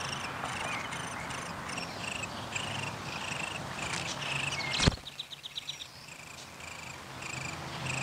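Downy woodpecker nestlings begging: short raspy calls repeated about three a second. A sharp knock comes just before the midpoint, followed by a quick run of ticks.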